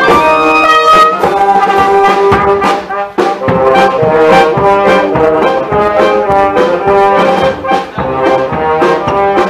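A small street band of clarinets, saxophone, trumpets and trombones playing a tune up close, with a steady beat.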